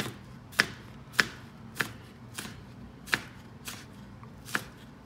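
Kitchen knife dicing green onion whites on a plastic cutting board: a steady run of sharp knife strikes against the board, a little under two a second.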